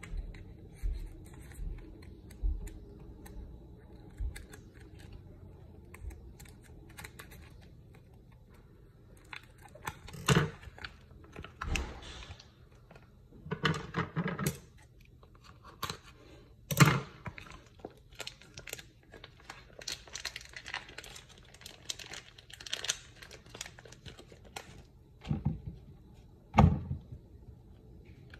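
Plastic food packaging being handled, torn open and crinkled, with scattered clunks and knocks of handling in a kitchen; a few sharp knocks stand out.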